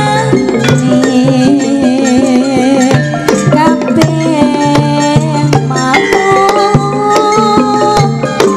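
Live campursari music: Javanese kendang hand-drum strokes keep a steady beat under held melodic lines, some of them wavering in pitch.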